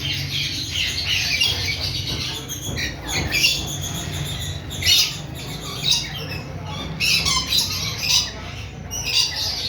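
Sulphur-crested cockatoo squawking: short, harsh calls repeated about once a second.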